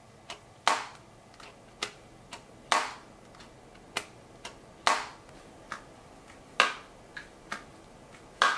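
Samsung Galaxy Z Fold 2 folding phone being opened and closed repeatedly: its hinge and the two halves give a series of clicks and snaps, five louder snaps about every two seconds with fainter clicks between. The owner finds the hinge quieter when opening and closing than the original Galaxy Fold's.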